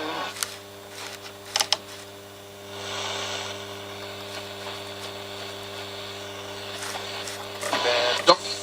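Valve radio's speaker giving a steady low mains hum with a hiss of static, between stretches of an AM broadcast. There are a few sharp clicks in the first two seconds.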